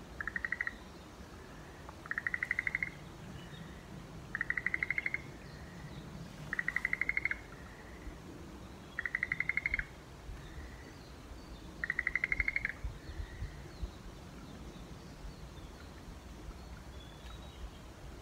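An animal call: six short, fast trills at one steady pitch, repeated about every two and a half seconds, each followed by a fainter short note, then it stops. A low steady outdoor rumble lies beneath.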